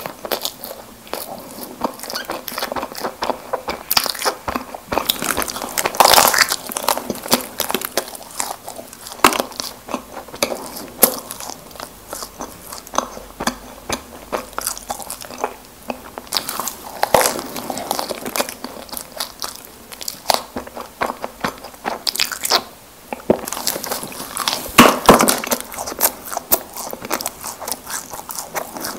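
Close-miked eating of Krispy Kreme doughnuts: irregular bites and chewing mouth sounds, with louder bites about 6, 17 and 25 seconds in.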